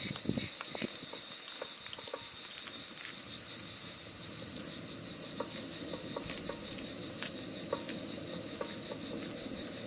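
Kuru börek frying in butter in a pan over a gas burner, a steady sizzle. A few soft knocks in the first second and scattered light clicks later come from the plastic spatula pressing it against the pan.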